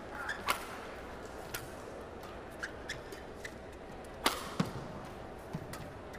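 Badminton rally: racket strings striking the shuttlecock again and again, sharp cracks about a second apart. The loudest is a hard overhead hit about four seconds in.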